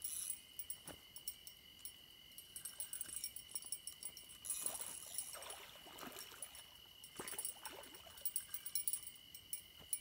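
Night insects chirring in a steady high drone, with a few brief splashes of water as a hooked flathead catfish is fought in close.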